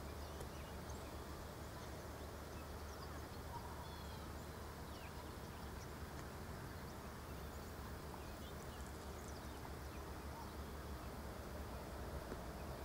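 Faint, scattered high chirps of small birds over a steady low rumble of outdoor background noise.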